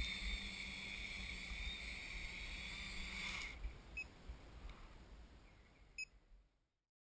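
Quadcopter's electric motors and propellers running with a steady whine, cutting off abruptly about three and a half seconds in as the motors stop. A low rumble remains with two short clicks, and then the sound fades out.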